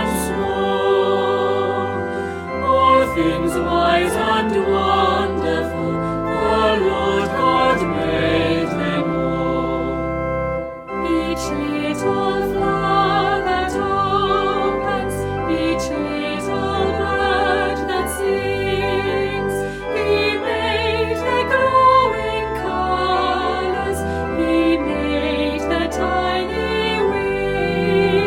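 Choir singing a slow piece of church music, with a short break about eleven seconds in.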